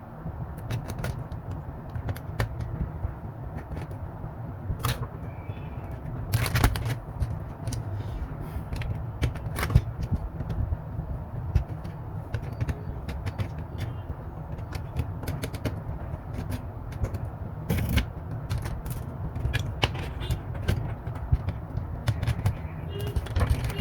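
Irregular clicks and taps of tools and small plastic and metal parts being handled while a Chromebook laptop is taken apart to remove its motherboard, over a steady low rumble.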